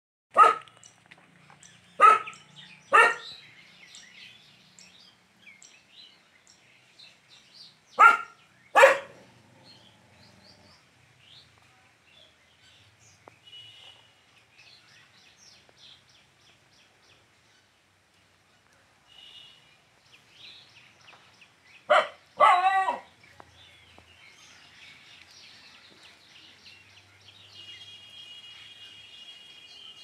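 A dog barking in short single barks and pairs, about seven in all: three in the first few seconds, two around eight seconds in, and two more a little past twenty seconds. Faint bird chirps sound in the quiet between.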